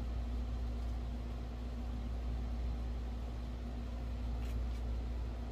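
Steady low background hum with a faint constant tone: room noise. Two faint, brief scratchy sounds come about four and a half seconds in.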